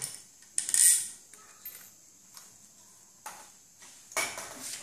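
Metal parts of a brush cutter being handled during disassembly: short clinks, clatters and scrapes of metal against metal and the tiled floor, the loudest about a second in and another bunch near the end.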